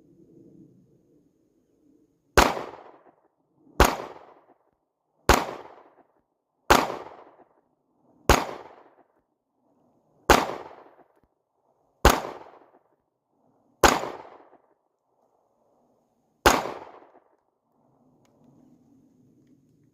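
Sig Sauer P320 9mm pistol fired nine times in slow, steady single shots about one and a half to two and a half seconds apart, each shot with a short fading echo.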